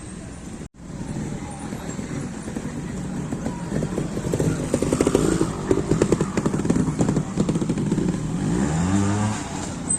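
Trials motorcycle engine running at low revs with throttle blips as the rider works through a section, then a rising rev near the end.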